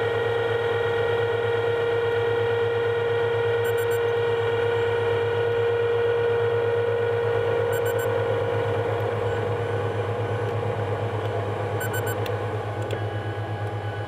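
John Deere 9500 combine running steadily while cutting soybeans: a high steady whine over the engine's low pulsing rumble. Faint short beeps come about every four seconds.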